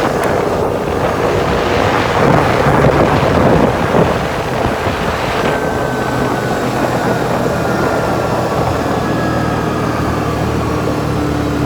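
CFMoto four-wheeler's engine running as it is ridden, with wind rushing over the microphone. About five and a half seconds in the wind noise drops away, leaving the engine's steady tone.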